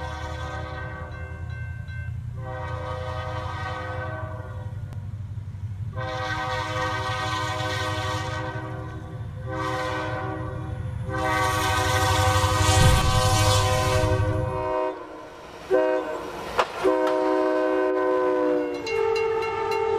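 Train's air horn sounding a run of long blasts, each a chord of several tones, over the low rumble of the moving train. The rumble drops away about three quarters of the way through, two sharp clicks follow, and near the end the horn sounds a lower chord that slides slightly down in pitch.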